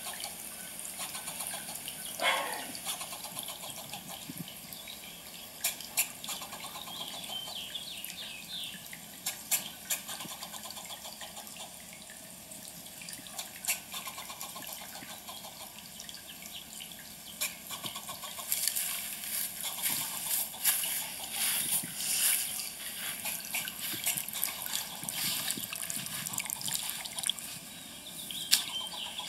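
A steady watery hiss like trickling water, with scattered sharp clicks and a brief falling squeak about two seconds in.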